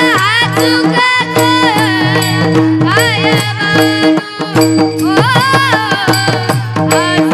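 A boy singing a Marathi devotional bhajan in long, gliding, ornamented notes without clear words, over steady held accompanying notes and rhythmic percussion.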